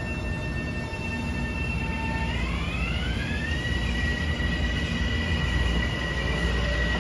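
Metro-North M7A electric multiple unit moving past on its rails, with a high electric whine from its traction motors over the rail rumble. The whine's tones rise together in pitch about two seconds in as the train gathers speed, then hold steady, and a lower tone starts to climb near the end.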